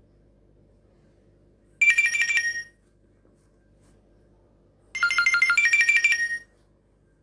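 Nokia 3120 classic mobile phone playing a ringtone: a short phrase of quick, high-pitched electronic notes about two seconds in, then a longer phrase of the same melody about five seconds in.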